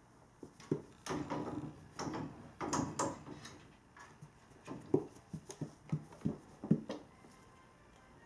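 A cat's paws and body knocking and scuffling against a wooden door and gate as it bats and pulls at a hanging stretchy ribbon toy. Rustling scuffles come first, then a few sharper knocks about five to seven seconds in.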